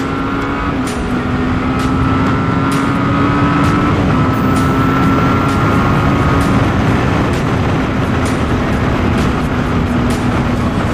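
Yamaha motorcycle engine running steadily at cruising speed, its note creeping slowly upward with two small dips, under a constant rush of wind and road noise.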